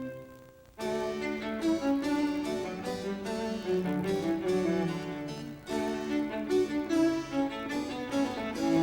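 Instrumental background music with bowed strings such as violin and cello, moving through sustained, changing notes. It dips briefly near the start before a new phrase comes in about a second in.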